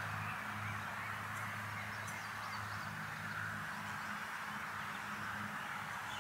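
Steady hiss and low hum with a few faint, short bird chirps about two seconds in.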